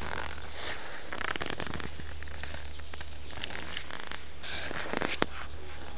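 Crackling and rustling handling noise on a phone's microphone as it is carried and panned, with a sharp click about five seconds in, over a steady low hum.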